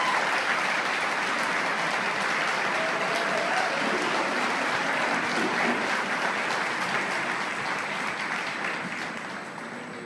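Audience applauding steadily, then tapering off over the last couple of seconds.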